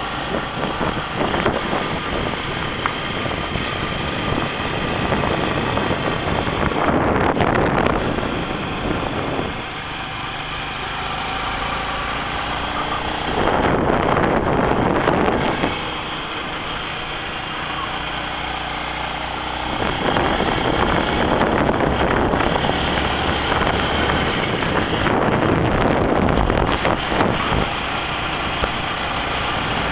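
A vehicle engine running steadily while driving, with wind rushing over the microphone and swelling louder several times.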